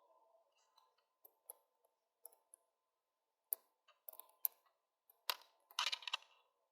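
Scattered light clicks and taps of small screws and printed plastic parts being handled, with a short clatter about five to six seconds in.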